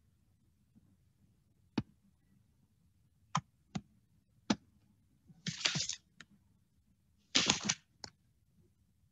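About six sharp, irregularly spaced clicks, with two short scratchy noises of about half a second each, one around the middle and a louder one near the end.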